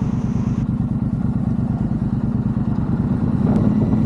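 Triumph parallel-twin motorcycle engine running with a steady, fast beat, getting a little louder near the end.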